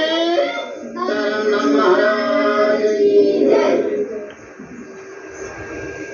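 Devotional singing of a temple aarti, voices holding and sliding between long notes. The singing stops about four seconds in, and a quieter steady tone lingers after it.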